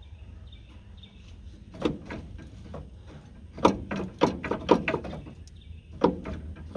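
Irregular sharp metallic knocks and clanks from tools and parts being worked on a backhoe's cab floor cover while it is taken off, with a quick run of several knocks a little past the middle.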